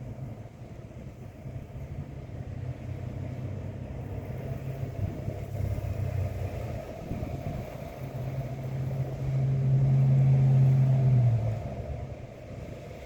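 A low engine hum, likely a vehicle passing by, that grows louder to a peak around ten seconds in and then fades quickly, over a faint background of wind.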